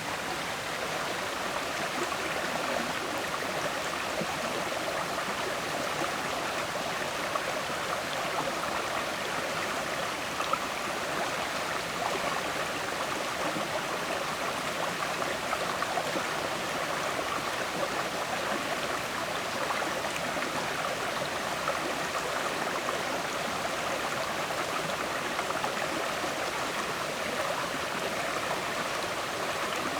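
River water flowing and gurgling over stones, a steady rushing with small splashes.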